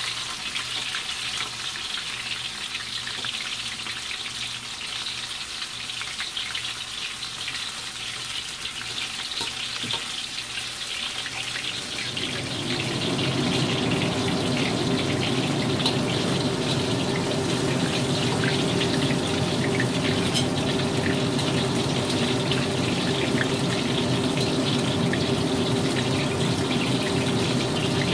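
Chicken pieces deep-frying in a wok of hot oil, sizzling and crackling steadily: the final fry before lifting out. About twelve seconds in a steady low hum joins and the whole sound gets louder.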